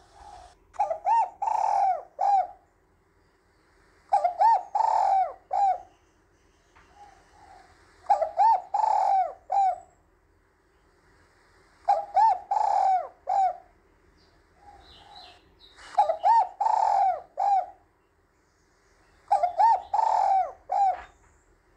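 Spotted dove cooing: six phrases of its multi-note coo, each about two seconds long, repeating about every four seconds, with a few softer notes in between.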